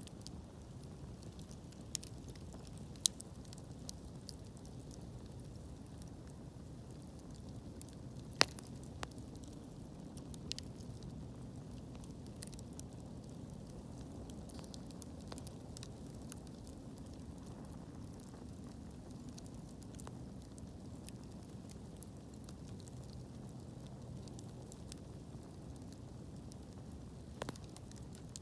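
Wood fire burning with a steady low rushing sound and scattered sharp crackles and pops; two pops stand out, about three and eight seconds in.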